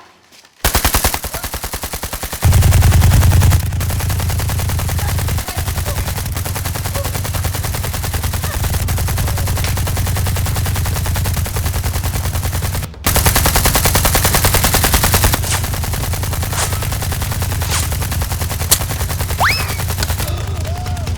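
Rapid automatic gunfire, one long run of fast shots with a brief break partway through.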